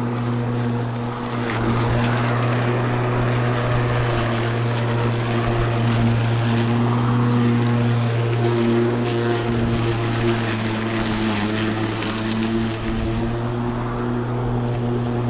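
Ozito PXC 36V cordless lawn mower running steadily while mowing grass: a constant electric-motor and blade hum with overtones over a rushing noise from the cutting.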